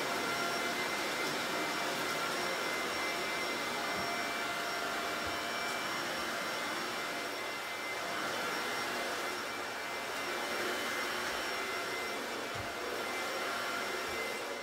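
Corded vacuum cleaner running steadily, a dense rushing noise with a high motor whine, swelling and dipping slightly as it is pushed back and forth over the floor.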